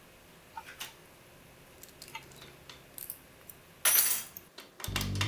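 Light metallic clicks and clinks of small metal tools and the padlock being handled, with a louder clatter of metal about four seconds in. Synthesizer music starts just before the end.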